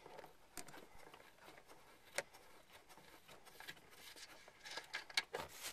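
Faint small clicks and ticks of a rear strut top-mount nut being spun off its threaded stud by hand, with one sharper click about two seconds in and a few more clicks near the end.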